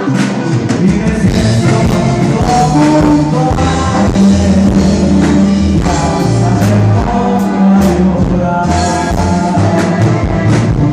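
Loud live regional Mexican band music: button accordion, tuba and drum kit playing together through the PA, with a man singing into a microphone.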